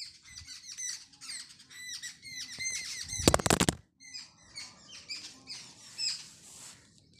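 Colouring app's drawing sound effects: a quick run of short, high-pitched squeaky chirps as brush strokes are painted, with one louder half-second squeal about three seconds in, then fainter chirps near the end.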